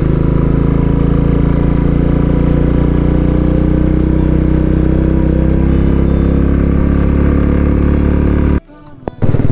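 Royal Enfield Classic single-cylinder motorcycle engine running steadily at riding speed, heard from the rider's seat, its pitch rising slightly. It cuts off abruptly near the end.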